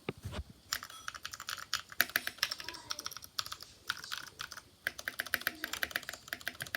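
Typing on an RK61 mechanical keyboard with lubed blue switches, modded with PE foam and tempest tape: quick runs of key clicks with short pauses between them.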